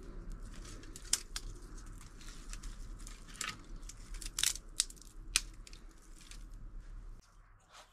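Dry twigs snapped by hand, a handful of sharp cracks spread over several seconds, over a low steady background hum that drops away near the end.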